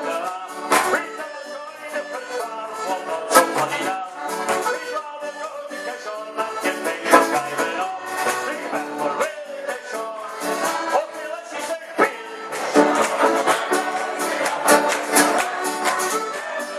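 Live band playing an upbeat Scottish folk song with a steady beat.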